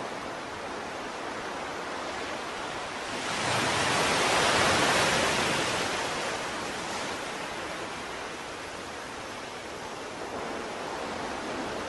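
Steady rush of ocean surf, with one wave swelling up about three seconds in and washing away over the next few seconds.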